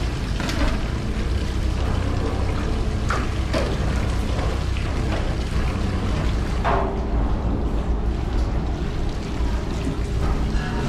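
Liquid sloshing and splashing as aluminium pots are swished through a large vat, over a steady low rumble, with a few short knocks of metal, one with a brief ring.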